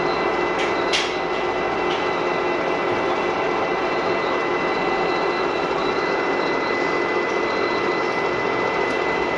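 Metal lathe running steadily with a constant machine whine, turning a replacement part for a car jack; a few sharp metallic clicks about a second in.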